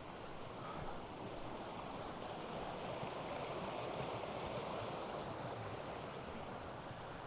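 Stream water rushing over rocks, a steady even rush that swells slightly midway.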